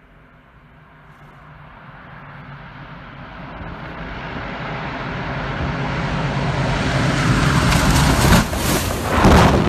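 Douglas DC-6's four radial piston engines, growing steadily louder as the plane comes in low on approach, loudest near the end as it passes close by.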